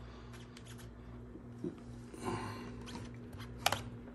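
Cable handling at a laptop: a brief rustle about two seconds in, then a sharp click near the end as an HDMI plug is pushed home into the laptop's side port, over a faint steady hum.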